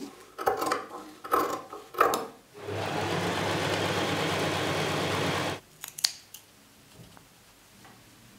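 Scissors snipping through cotton gingham fabric several times, then an electric sewing machine running steadily for about three seconds before stopping abruptly, followed by a few light clicks.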